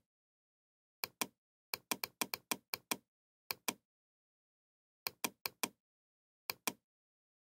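Computer mouse button clicking, mostly in quick pairs like double-clicks, in several bursts of sharp clicks.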